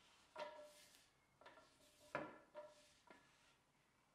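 Wooden Allen key knocking and clacking against a wooden socket head cap screw as it is seated in the hex socket and worked around: about five hollow wooden knocks, each with a short ring, the loudest a little past halfway.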